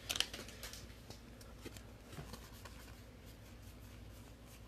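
Trading cards being flipped through and handled: a few faint clicks and slides, mostly in the first second, with scattered small ones later.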